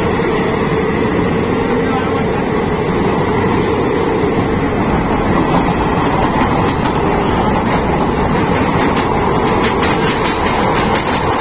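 Indian Railways passenger coaches running on the rails with a steady, loud rumble of wheels on track, with a run of sharp clicks near the end as the wheels pass over rail joints.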